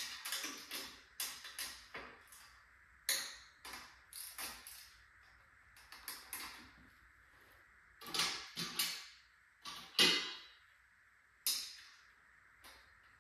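Workshop handling noise as a metal machine is taken apart: a series of irregular short clanks and scrapes from tools and metal parts, the loudest about ten seconds in.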